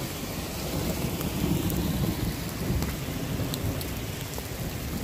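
Heavy rain pouring down on pavement, a steady hiss of falling water, with a low rumble underneath.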